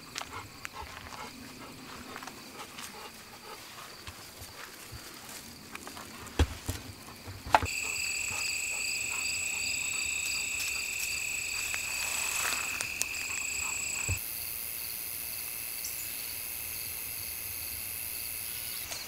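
Steady high-pitched chorus of crickets and other insects. It starts abruptly about seven seconds in, after a few faint clicks, and about fourteen seconds in it switches abruptly to a different, higher set of insect tones.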